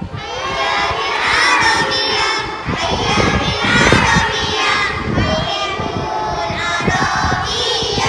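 A crowd of young children's voices, many at once, shouting and singing together without a break.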